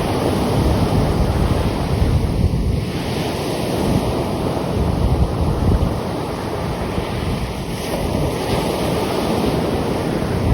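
Sea surf washing in, with strong wind buffeting the microphone in uneven gusts.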